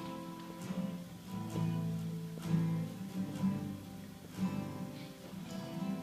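Acoustic guitar music, softly strummed and plucked chords.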